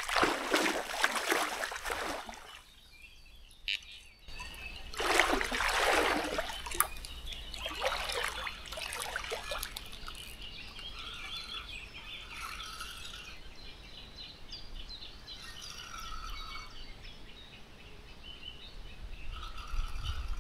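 Water splashing in three noisy bursts over the first half, then songbirds calling in short repeated phrases over a quiet lakeside background.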